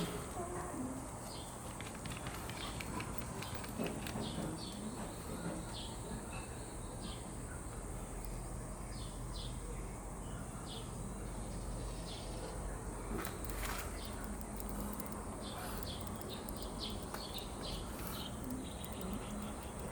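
Small birds chirping: scattered short, high chirps over a steady low hum.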